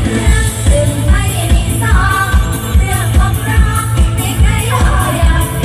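Live band music with singing over a loud stage PA, with a steady bass drum beat about twice a second.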